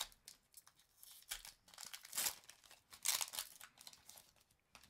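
Foil wrapper of a Pokémon Sun & Moon Guardians Rising booster pack being torn open and crinkled, in several short rustles, the loudest about two and three seconds in.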